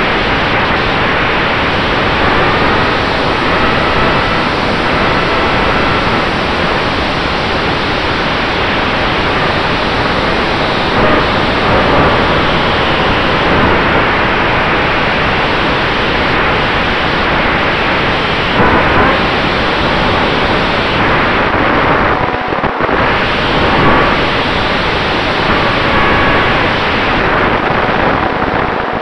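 Loud, steady rush of wind over the onboard camera of an electric RC warbird in flight, with the faint whine of its brushless motor and propeller coming and going. There are a few brief surges as the plane manoeuvres.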